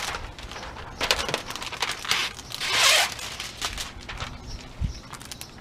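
Thin plastic window tint film crinkling and crackling in gloved hands as it is handled and slid over the wet glass. There is a run of short crackly rustles, with bursts about one, two and three seconds in; the one near three seconds is the loudest.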